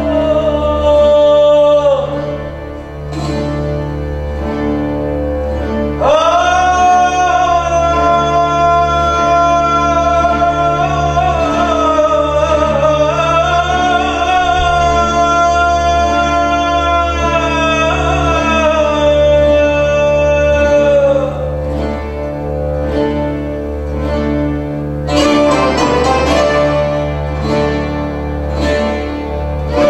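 Live rebetiko music: a singer holds long, slowly wavering notes over a steady low drone. Quick plucked-string notes come in near the end.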